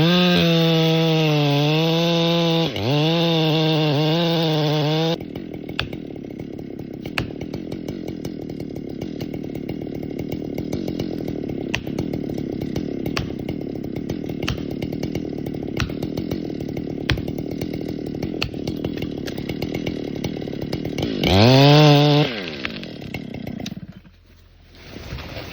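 Ported Husqvarna 585 chainsaw cutting at full throttle, its pitch wavering under load, then dropping suddenly to a rough idle about five seconds in. Near the end it revs up briefly, then cuts out.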